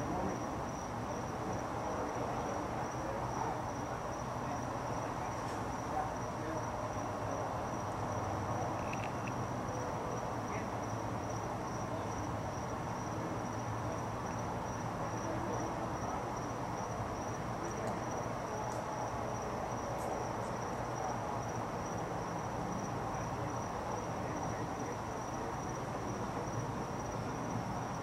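Crickets chirping steadily: a high, even pulsing at about two chirps a second, over a low, constant background hum.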